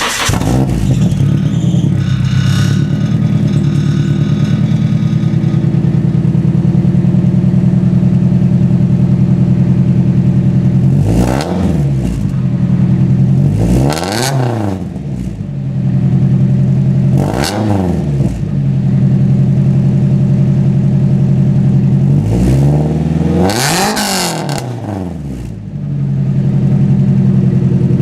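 Nissan 240SX S13's KA24DE four-cylinder engine idling loudly through a budget 3-inch stainless steel N1-style catback exhaust, with four free revs a few seconds apart where the pitch climbs and drops back, the last one longer.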